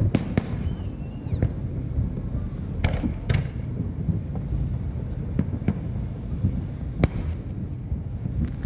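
Fireworks shells bursting in an irregular series of sharp bangs, about nine in all, the loudest about seven seconds in, over a steady low rumble.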